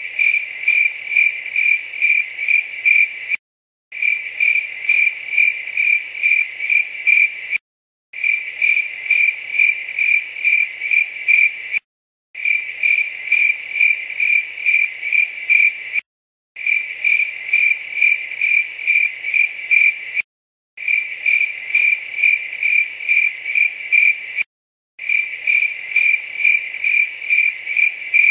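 Cricket chirping: high, evenly pulsed chirps, about three a second. It comes in repeated stretches of about three and a half seconds, each broken off by a brief gap of dead silence, like a looped sound effect.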